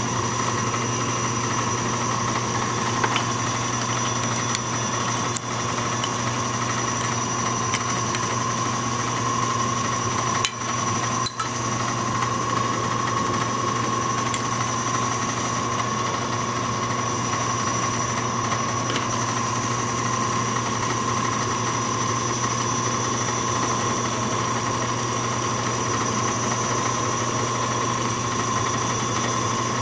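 Small metal lathe running steadily, its motor and belt drive giving a constant hum with a high-pitched whine, while a 5/16 in. drill rod blank turns in the chuck to be faced and center drilled. The sound dips briefly twice near the middle.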